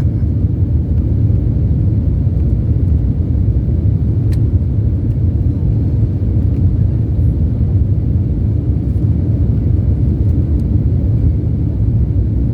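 Steady low drone in the cabin of an Embraer E190 climbing after takeoff: its two GE CF34-10E turbofans at climb power, mixed with the rush of air past the fuselage.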